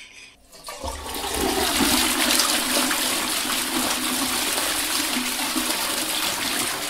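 A toilet flushing: a rush of water starts about a second in, runs steadily, and begins to fade near the end.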